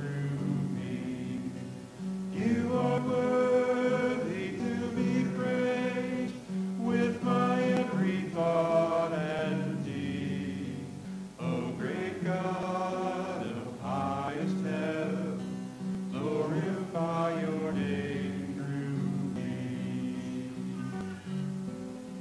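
Live worship song: voices singing phrases over strummed electric and acoustic guitars.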